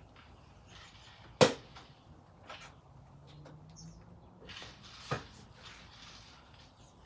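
Two sharp knocks or clacks of hard objects being handled, about four seconds apart, the first the louder, with faint rustling of handling between them.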